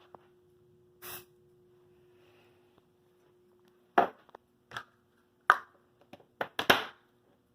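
Handling noise: a short rustle about a second in, then a series of sharp clicks and knocks from hard objects being handled, bunched quickly together near the end, over a faint steady hum.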